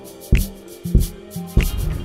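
Background music with a steady beat, a strong low beat roughly every 0.6 seconds.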